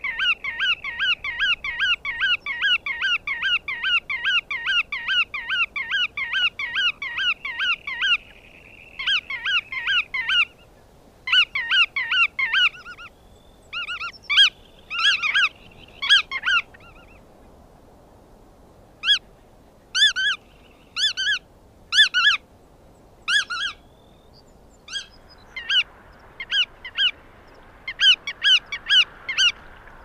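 Black-tailed godwit calling: a fast run of repeated short notes, each quickly rising and falling in pitch, about three to four a second for the first eight seconds. The calling then breaks into short bursts and spaced single calls about a second apart, with a fresh quick burst near the end.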